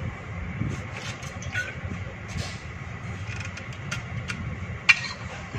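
Steady low engine rumble inside a passenger cabin, with scattered light clicks and one sharp knock near the end.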